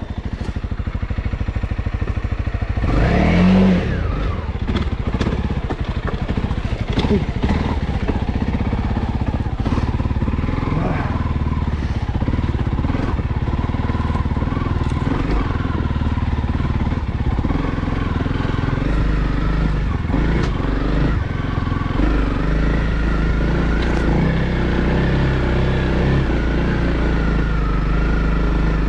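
Honda CRF300L's single-cylinder engine running as the bike is ridden at low speed, with a short rev that rises about three seconds in, then steady running.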